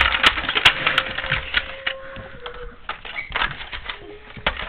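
Plastic toy pieces clicking and rattling as small figures are handled and moved about on a toy pirate ship, with a rapid run of clicks in the first second and scattered clicks after.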